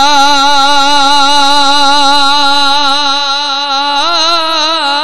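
A male naat reciter holds one long sung note with vibrato, stretching the last syllable of "इशारा". About four seconds in, the held pitch starts to waver more widely as he moves into an ornament.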